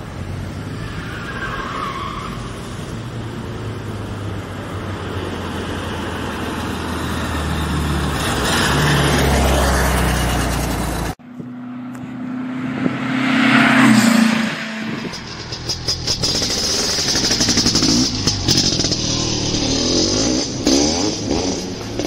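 A car's engine running as it drives along, growing steadily louder for about ten seconds and then cut off suddenly. After the cut another stretch of engine sound swells to a peak and falls away.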